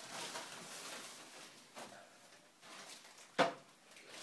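Faint rustling and shuffling, then one sharp knock about three and a half seconds in.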